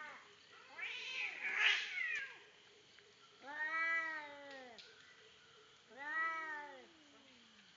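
Two cats in a fight yowling: a harsh, rasping screech in the first two seconds, then two long drawn-out yowls that rise and fall in pitch.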